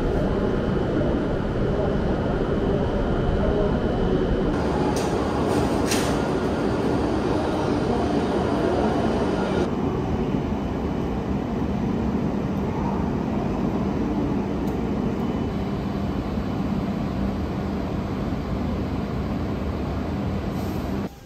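Steady rumble and hum of a Shinkansen platform with bullet trains standing at it. The background changes abruptly about four and ten seconds in.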